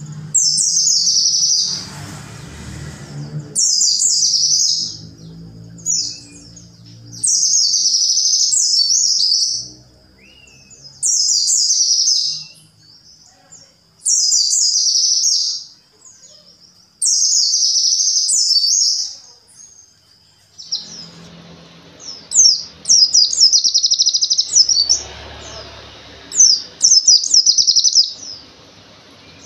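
Pleci, a Muria white-eye (Zosterops), singing loud, high song phrases of about two seconds each with short pauses between. In the last third the song turns into a quicker run of short chirps.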